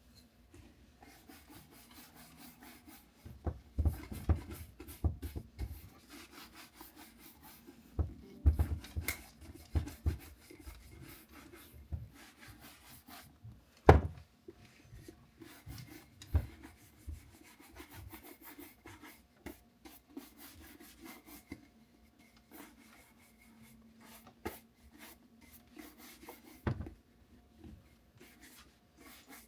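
Irregular rubbing and scraping of objects being handled, with scattered knocks. The knocks come in clusters around four and nine seconds in, and the loudest is a single sharp knock about fourteen seconds in.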